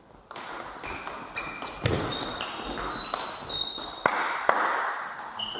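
Table tennis rally in a reverberant sports hall: the celluloid-type ball clicking off bats and the table, with short squeaks of sports shoes on the hall floor and a heavier knock about two seconds in. About four seconds in there is a sharp hit followed by a louder, noisy burst as the rally ends.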